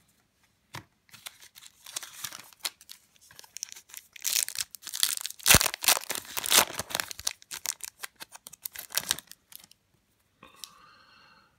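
A foil wrapper of a 2017-18 Upper Deck Team Canada hockey card pack being torn open and crinkled by hand: a quick run of ripping and crackling that is loudest around the middle, with one sharp snap.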